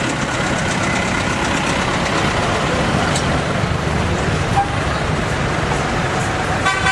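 Street traffic: the engines of old cars running and passing close by, a steady, loud rumble and noise. A short pitched sound comes in near the end.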